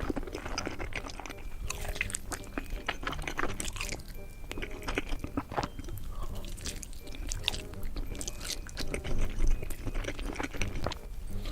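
Close-miked eating: bites and crunching, with chewing, as a series of sharp crackles.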